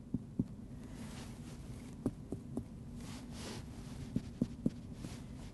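Soft, dull taps of chest percussion: a finger striking another finger laid flat between the ribs of a mannequin's chest, in short groups of two or three, checking for the resonant note of the lungs. A steady low hum runs underneath.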